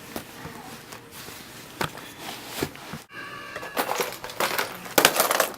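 Rustling and crunching noises with scattered sharp clicks, growing louder after an abrupt break about three seconds in.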